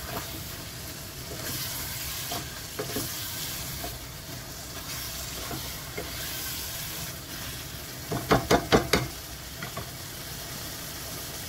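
Chicken and fried potatoes in sambal sauce sizzling in a pot while a wooden spatula stirs and scrapes through them, with scattered small clicks. About eight seconds in comes a quick run of about five sharp knocks, after which the stirring stops.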